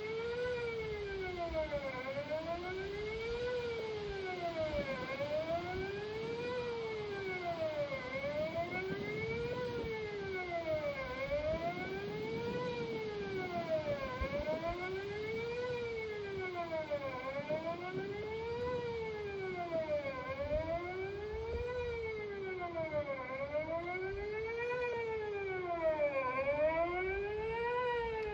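Outdoor tornado warning siren sounding a test, a wailing tone that rises and falls about every two and a half seconds.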